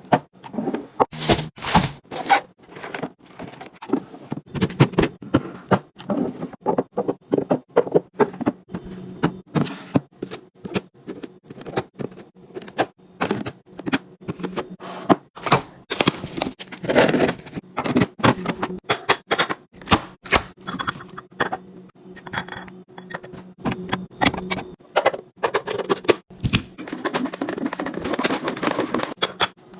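Containers, jars and cans being set down, slid and clinked into place while a refrigerator is restocked: a quick, irregular run of knocks, taps and clinks of plastic and glass, with a low steady hum underneath.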